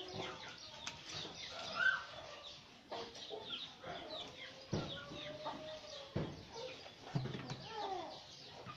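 Chickens clucking and small birds chirping in short bursts, with two light knocks about midway.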